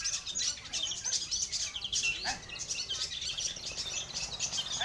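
Several long-tailed shrikes (cendet) chirping and trilling at once, a dense, unbroken chatter of quick, high notes.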